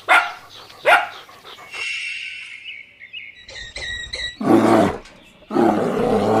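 Animal calls: two short calls that drop in pitch near the start, then two longer, louder calls in the second half.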